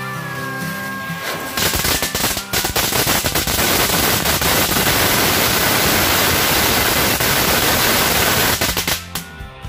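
A giant ground-spinner firecracker (petasan gangsing) going off: a loud, dense spray of rapid crackling bangs and hissing for about seven and a half seconds. It starts about a second and a half in and cuts off suddenly near the end. Background guitar music is heard before the bangs start.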